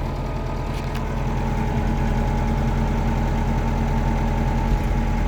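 Case 885 XL tractor's diesel engine running steadily, heard from inside the cab, getting a little louder over the first second or two.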